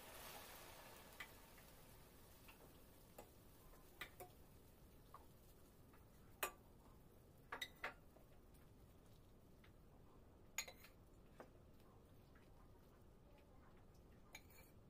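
Near silence broken by scattered faint clicks and ticks at irregular intervals, about a dozen in all, the loudest about six and a half seconds in. A faint hiss fades out in the first half second.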